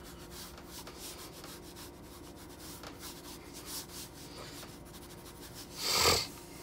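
Colored pencil scratching on newsprint in quick, repeated sketching strokes. About six seconds in comes one brief, louder swish.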